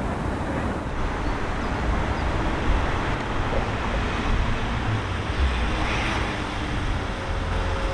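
Steady low rumble of an ICE 4 high-speed train at the platform, with no brake squeal or coupling clunk yet.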